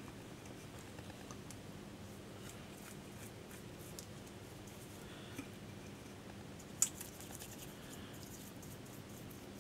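Faint scratching and small clicks of a small brush working insulating varnish into a transformer's windings and laminations, with one sharper click about seven seconds in.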